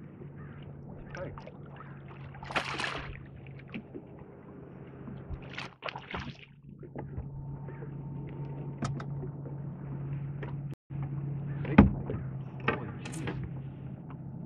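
Water splashing as a hooked northern pike thrashes at the surface beside a boat, in several short bursts over a steady low hum. A sharp knock about twelve seconds in is the loudest sound.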